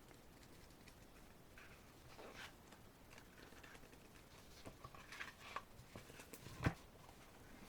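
Faint rustling and light tapping of paper and card as a bookmark is taken out of an album's photo book, with one sharper tap about two-thirds of the way through.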